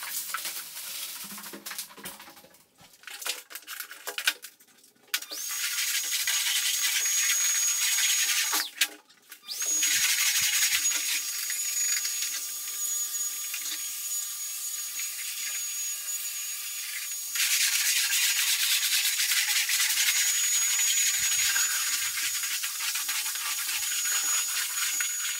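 A few seconds of clattering and rubbing as things are cleared out, then a vacuum cleaner running with a steady high whine, stopping briefly about nine seconds in and then running on.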